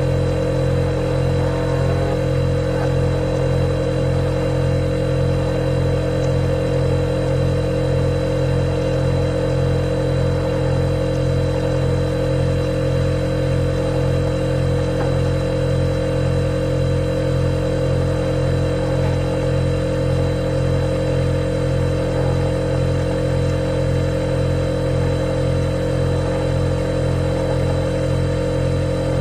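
Refrigerator compressor running: a steady mechanical hum of low tones with a faint high whine above it, unchanging throughout.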